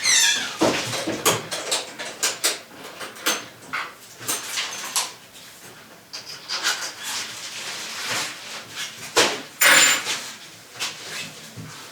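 Irregular knocks, clatters and scrapes of objects being handled, with a short falling squeak at the very start and a denser burst of clatter near the end.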